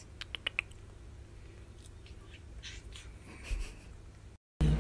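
Tabby cat gagging at food held to its face: four short, sharp retching clicks in quick succession just after the start, then only faint sounds.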